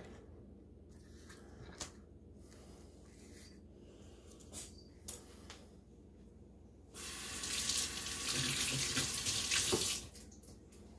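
Water running from a tap for about three seconds, switched on suddenly and shut off. Earlier, a few light knocks as the silicone mold is handled and set down.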